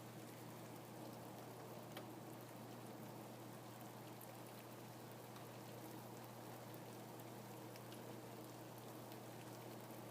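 Steady rain falling, with scattered single drops ticking through the even hiss.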